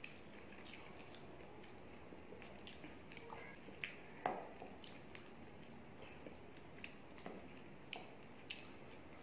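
Fingers squishing and mixing rice with chicken curry on a plate, giving a scatter of soft wet clicks and squishes. The loudest snap comes about four seconds in.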